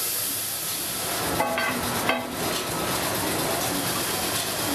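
A steady hiss, with a short pitched sound about a second and a half in and a sharp click or knock just after two seconds.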